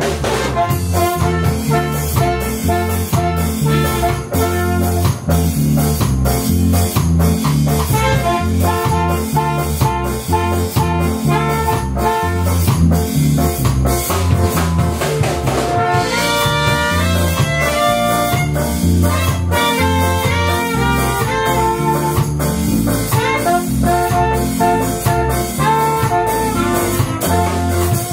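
Live band playing: a drum kit keeps a steady beat while saxophone and trumpet play the tune together. The horn line comes forward more strongly a little over halfway through.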